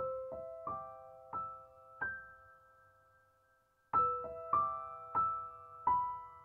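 Background music: a slow piano melody of single notes that ring out and fade, pausing near the middle before a new phrase begins about four seconds in.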